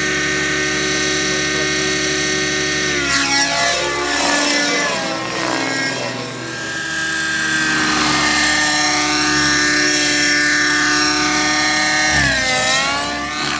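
Hirobo SDX radio-controlled helicopter in 3D aerobatic flight: a steady whine from its rotors and drivetrain. From about three seconds in, the pitch sweeps up and down as it swoops and changes direction, then it drops and settles again near the end.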